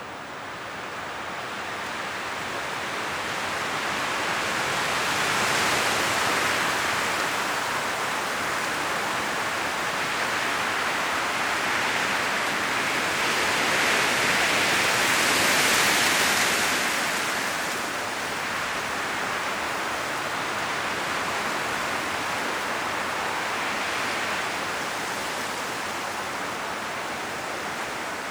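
Strong wind gusting through forest trees, the leaves rustling in a steady rushing hiss that swells and fades, with the biggest gusts about six seconds in and around the middle.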